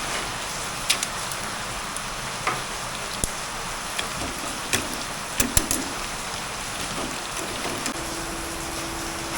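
Pork skin deep-frying in hot oil: a steady sizzle with scattered sharp pops as the pieces puff up. A steady hum comes in near the end.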